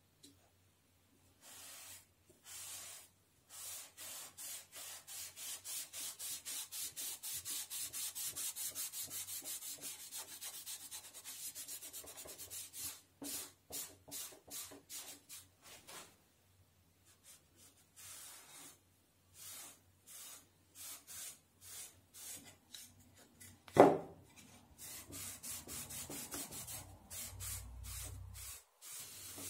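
A cloth pad rubbed back and forth over a bare softwood board, wiping on a dark finish in quick hissing strokes, several a second, that come in runs with pauses. About two-thirds of the way through comes a single sharp knock, the loudest sound.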